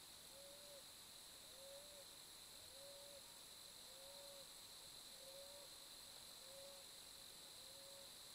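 Faint series of short hooting calls, evenly spaced about one a second, over a steady high-pitched drone.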